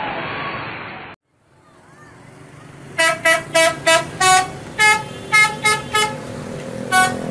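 Noisy cheering for about a second, cut off abruptly. After a short gap, an Indonesian 'telolet' bus horn plays a quick tune of about ten short toots at changing pitches, over a steady hum.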